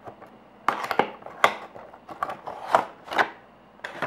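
Cardboard model box and clear plastic tray being handled and slid out: a run of short scrapes, rustles and light knocks for about two and a half seconds.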